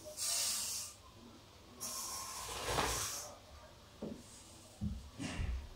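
Handling noise from a phone camera being moved over a paper notebook: two soft hissing rustles, then a few low bumps near the end.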